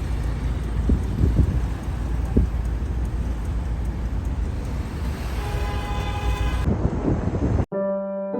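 Steady low rumble with a few short knocks, a held tone with several overtones coming in during its second half. Piano music starts after a sudden cut near the end.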